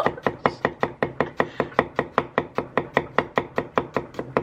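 Kitchen knife chopping fast on a cutting board: a very even run of sharp knocks, about five a second.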